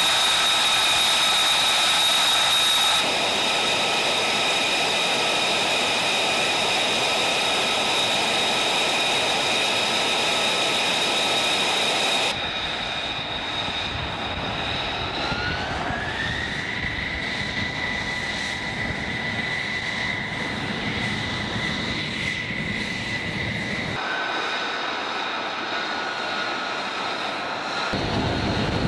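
F-35B's Pratt & Whitney F135 jet engine running hot on the ground: a steady jet whine with several high held tones. About halfway through, one tone rises in pitch and then holds. The sound shifts abruptly in level and tone three or four times.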